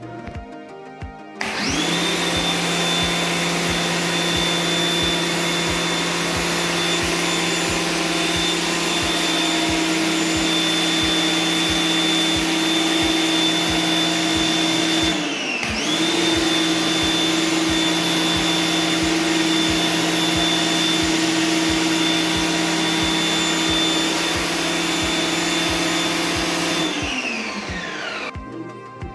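Electric pressure washer starting up and running steadily while spraying water onto a tiled floor. About halfway through, the motor briefly drops off and spins back up, and it winds down near the end.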